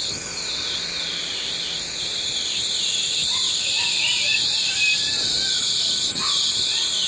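Class 800 train pulling into the platform: a steady high hiss with a wavering whine on top, growing a little louder about two seconds in.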